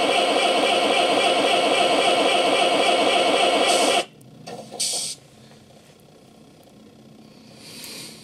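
An RC model Kirovets K-700's sound module playing a diesel engine idling with an even, repeating beat, which cuts off abruptly about four seconds in. A brief hiss follows about a second later.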